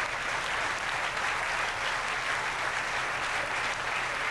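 Audience applauding: dense, even clapping from a large seated crowd, held steady throughout.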